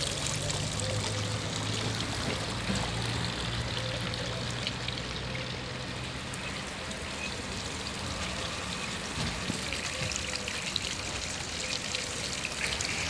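Water trickling and splashing from a tiered marble fountain, a steady patter of falling water. A low hum runs underneath through roughly the first half.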